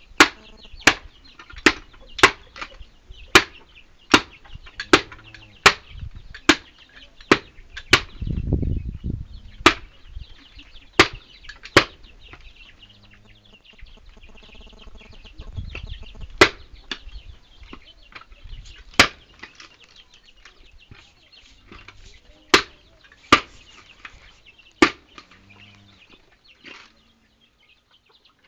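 Repeated sharp chopping blows of a blade striking down onto wood: about one a second for the first dozen seconds, then sparser, the last about 25 seconds in. There are two short stretches of low rumbling between the blows.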